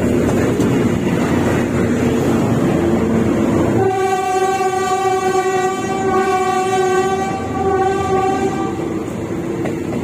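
Philippine National Railways diesel-hauled passenger train passing at close range, its engine and wheels rumbling. About four seconds in, the train horn sounds one long blast of about five seconds.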